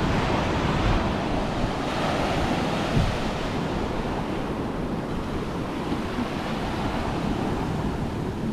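Ocean surf washing steadily onto the beach, with wind buffeting the microphone and a brief low thump about three seconds in.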